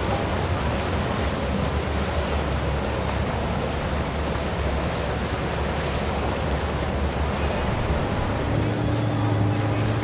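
Steady rush of waves and wind over open water, with a low boat-engine hum that turns into a steady drone near the end.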